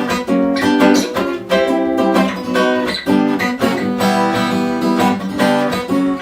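Acoustic guitar strummed in a steady rhythm of chords, an instrumental passage between sung verses.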